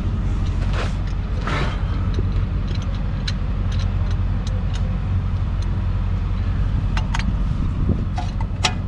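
A steady low engine hum, as of a vehicle idling close by, runs throughout. Over it come scattered light metallic clicks and taps as a C-clamp and old brake pad are set against the caliper piston.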